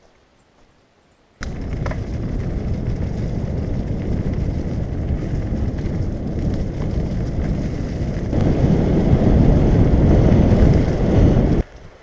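Wind buffeting an action-camera microphone, with the rumble of mountain-bike tyres on a dirt and leaf-covered track, during a fast descent. It starts suddenly about a second and a half in, gets louder about eight seconds in, and cuts off suddenly near the end.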